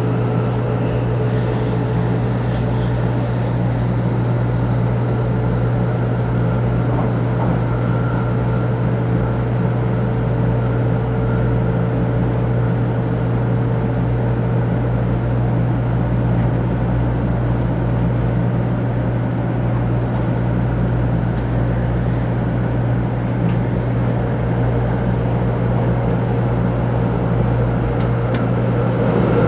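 Inside the passenger cabin of a 500 series Shinkansen running at speed: a steady low rumble and hum of the train, with a faint steady whine above it.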